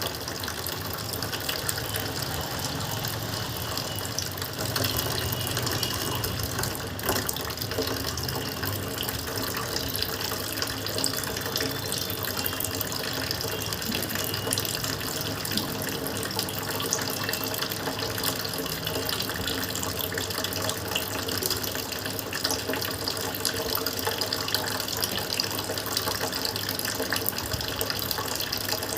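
Lukewarm salt water running in a steady stream through the nose during a jal neti nasal rinse, poured from a neti pot.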